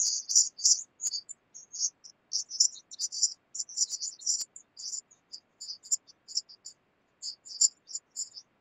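A remote participant's voice coming through a video call badly garbled. It is heard only as high-pitched chirps and hiss in short, irregular bursts with dead-silent gaps, and none of the normal body of a voice.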